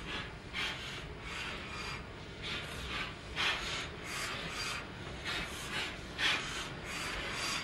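Peppercorn A1 Pacific 60163 Tornado's three-cylinder steam engine chuffing as it moves slowly under its own power, a regular run of hissing exhaust beats about two a second over a low rumble.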